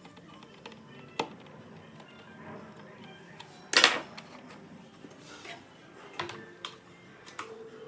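A few sharp clicks and knocks of hard objects being handled, with one louder clatter about four seconds in.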